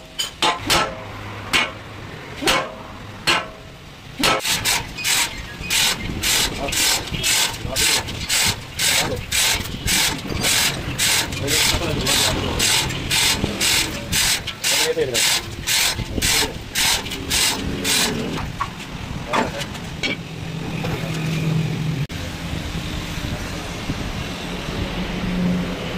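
Hammer blows on a truck's steel rear axle spindle: slow single strikes at first, then a fast, even run of about two strikes a second that thins out, with a low machine hum near the end.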